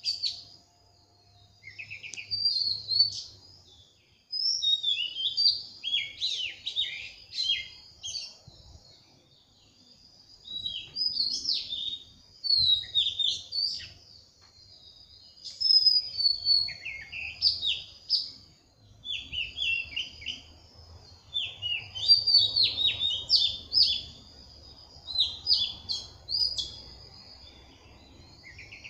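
Birds chirping and singing in quick, repeated phrases of a second or two, with short pauses between.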